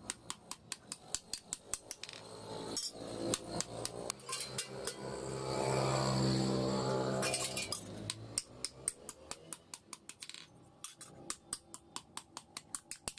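Hammer striking metal in rapid, even blows, about three to four a second, while forging. A low hum swells up and fades in the middle, with the hammering thinning out behind it.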